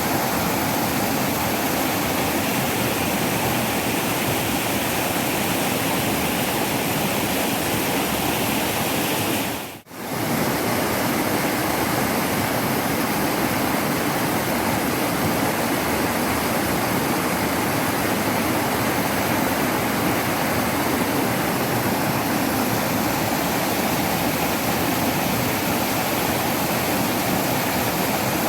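Waterfall rushing steadily. About ten seconds in the sound dips briefly and comes straight back, like a splice between recordings.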